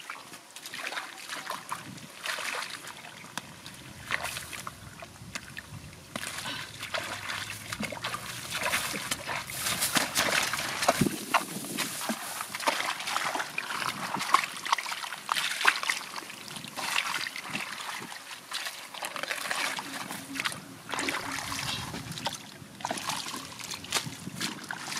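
Hands digging and scooping in shallow muddy water: irregular splashing and sloshing of wet mud and water, busiest in the middle.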